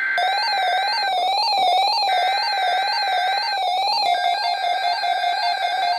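Emergency Alert System SAME header: digital data bursts of screechy two-tone chirping at about 1.5 and 2 kHz, sent in repeated bursts about a second long, announcing a tornado watch on NOAA Weather Radio. Under the bursts an alert tone warbles quickly up and down, then settles into a steady tone about four seconds in.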